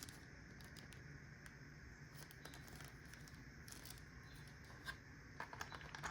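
Near silence broken by faint rustling and small clicks of packaging and lock parts being handled, with a few more clicks near the end.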